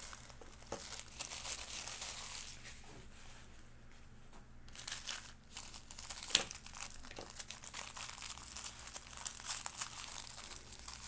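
Packaging crinkling and tearing as an item is unwrapped by hand, a busy run of small crackles with one sharper snap about six seconds in.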